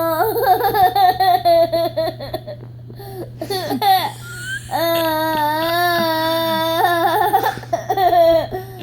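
A young child singing and babbling a tune without clear words, in a high voice with wavering, held notes and short breaks between phrases.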